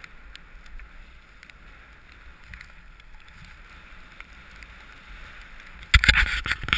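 Skis sliding over packed snow, a steady hiss, with a low wind rumble on the microphone and faint scattered ticks. About six seconds in, loud rough bursts of noise break in.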